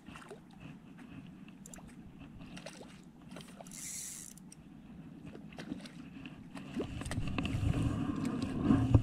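Spinning reel and ultralight rod being worked, with faint mechanical ticking from the reel and a short hiss about four seconds in. Near the end come louder rumbling handling noises and sharp clicks as the angler moves about.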